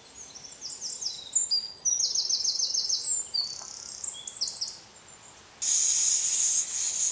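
A small bird chirping in quick repeated high notes. About five and a half seconds in, an aluminium pressure cooker's whistle weight lifts and lets off steam in a loud, steady, high hiss. This is one of the whistles counted to tell that the mutton has cooked under pressure.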